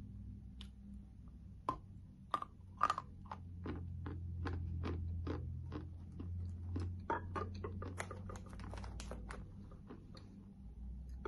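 A person chewing a lump of edible chalk close to the microphone: a run of crisp, dry crunches, about three a second.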